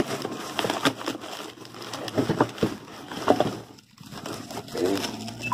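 Cardboard box being torn open by hand, with irregular ripping and the crackle of plastic wrap and bubble wrap as a wrapped part is pulled out. The noise pauses briefly near the end.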